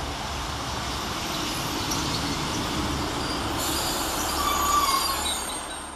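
Two coupled Class 150 Sprinter diesel multiple units running into the platform and slowing, a steady rumble of wheels and engines. Thin, high brake squeal joins from about three and a half seconds in, loudest near five seconds.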